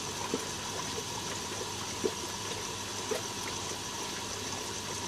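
Steady trickle of water over a low, even pump hum from an aquaponics pond, with a few faint clicks.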